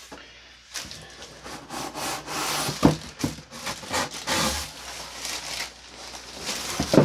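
Cardboard box flaps and inserts scraping and rustling as a plastic-wrapped crossbow is pulled out of its shipping box, with a sharp knock about three seconds in and another near the end.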